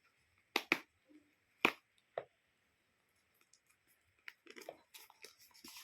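A few sharp clicks and taps from a smartwatch's retail box being handled, then soft rustling of the packaging from about four seconds in.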